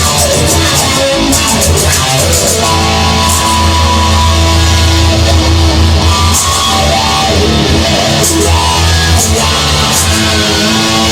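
Instrumental break of a rock song: electric guitar playing over a steady bass, with drums.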